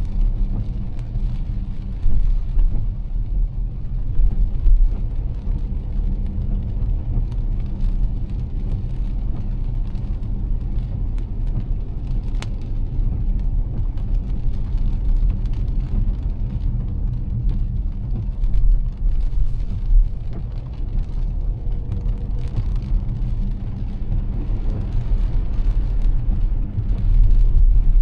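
Car driving on a rain-soaked road, heard from inside the cabin: a steady low rumble of engine and tyres with a faint hiss of rain and spray and a few light bumps.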